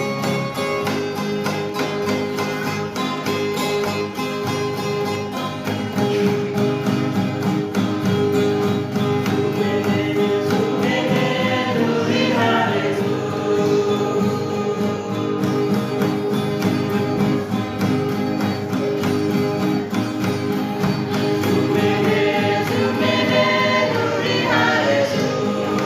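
Music with a choir singing, in a gospel style, over guitar and other instruments.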